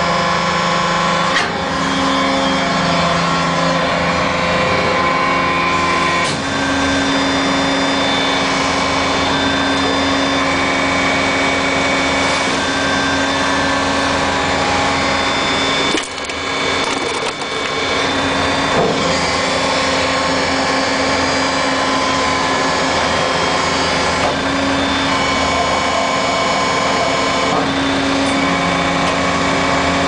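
Hydraulic power pack of a Lion 44 metal baling press running steadily: a continuous machine whine with several layered tones. The tones change pitch several times as the press works, with a brief drop in level about halfway through.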